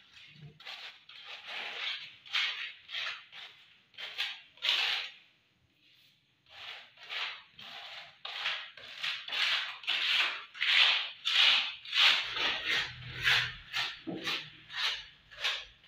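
Repeated scraping strokes of a hand tool worked back and forth over a hard surface, about two or three a second, with a short pause about five seconds in.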